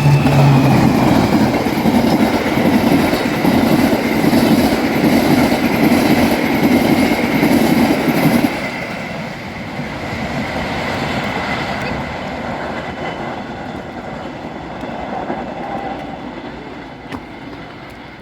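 Train passing close by over a level crossing, its wheels clattering on the rails. The loud passage drops off sharply about eight and a half seconds in, and the rumble then fades away.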